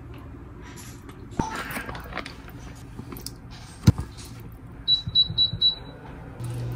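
A spatula scraping thick black bean sauce out of a plastic pouch into a pot, with a sharp knock about four seconds in. Then comes a quick run of four high beeps from the induction cooktop's controls, and a low steady hum starts near the end as the cooktop begins heating.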